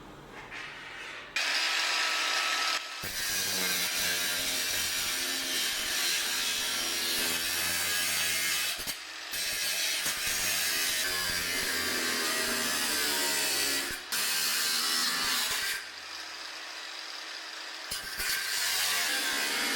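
Handheld power tool running in several long bursts with short pauses: a harsh, hissing noise over a wavering motor whine.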